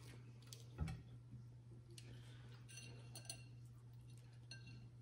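Faint clicks and clinks of crab-leg shells being handled and cracked apart, with a single duller knock about a second in, over a steady low hum.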